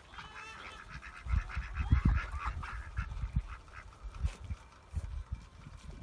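A flock of Magpie ducks calling, a fast jumble of short quacks and chatter that is busiest in the first three seconds, then thins to scattered calls. Low rumbling thumps come in about a second in.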